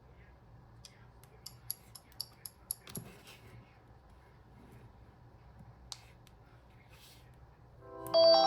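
A run of light clicks, about six in a second and a half, then a single click a few seconds later; near the end a smartphone's incoming-call ringtone starts, a loud melody of bright electronic notes.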